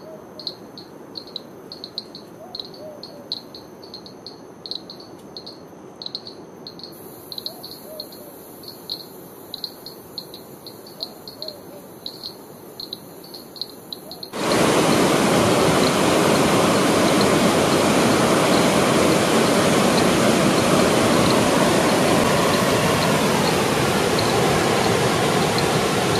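An insect chirping in a steady rhythm, about two high chirps a second, with a few faint low calls now and then. About halfway through it cuts abruptly to the loud, steady rush of a waterfall.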